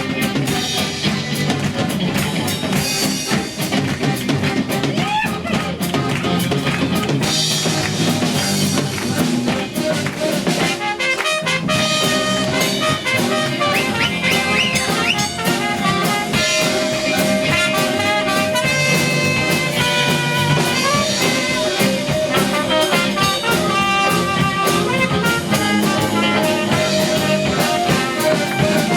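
Band playing an instrumental break with no singing: a drum kit keeps the beat under a held lead melody line.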